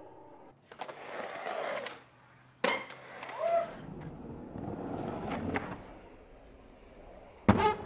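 Skateboard wheels rolling on a concrete bowl, with a sharp crack of the board striking the concrete a little under 3 seconds in and a louder one near the end as the skater comes down from an air.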